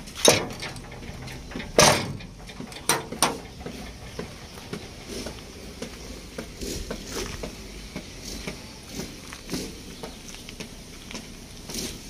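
Excavator's metal battery-compartment side panel being swung shut and latched, with loud knocks about a quarter second in and near two seconds and lighter knocks around three seconds. Then soft, fairly regular footsteps on gravel.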